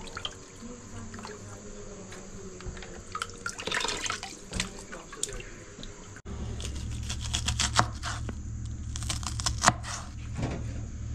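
Water sloshing and splashing in a plastic basin as whole fish are rubbed and washed by hand. About six seconds in it changes to a kitchen knife chopping onion on a wooden board, a run of sharp taps over a low steady hum.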